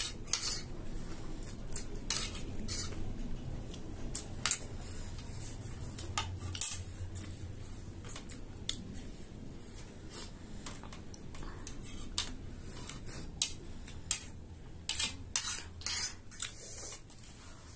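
Metal spoons and forks clinking and scraping on ceramic plates as loose chatpate is scooped up, in many short, sharp clicks that come closer together near the end.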